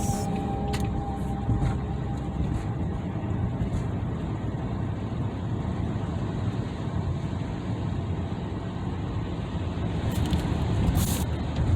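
Steady low rumble of a car's tyres and engine on a snow-covered road, heard from inside the cabin while driving.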